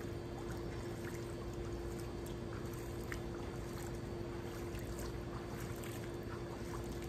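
Swimming-pool water sloshing and trickling around a person wading slowly, with small splashes, over a steady hum.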